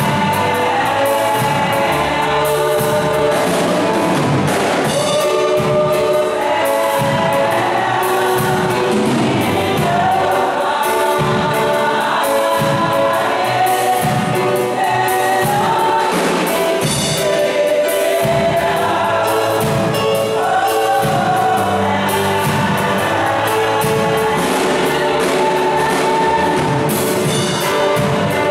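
Women's gospel choir singing together into microphones, several voices held at once over a steady beat.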